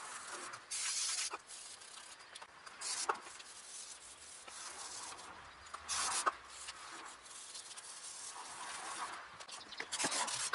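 An old toothbrush scrubbing a greasy brake caliper, with a few short hissing sprays of aerosol brake cleaner.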